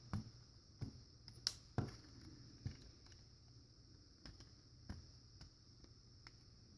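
Faint, scattered clicks and taps of a plastic Transformers action figure's parts being moved and snapped into place, a few sharp ones in the first three seconds and sparser ones after.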